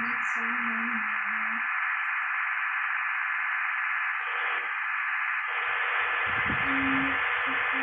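Steady hiss, like radio static, with a faint steady whistle tone running through it. A deeper hum comes in briefly near the start and again from about six seconds in.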